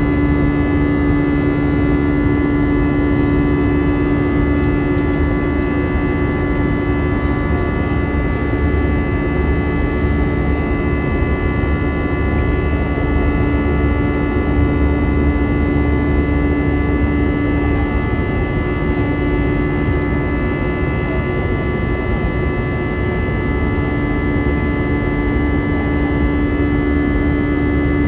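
Airbus A320-214's CFM56 jet engines and airflow heard inside the passenger cabin: a steady drone carrying several steady tones, the strongest a low hum that fades for a few seconds past the middle and then returns.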